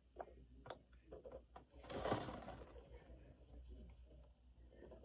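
Faint scratching of a marker tip on paper in short drawing strokes, with one louder scrape lasting about half a second about two seconds in.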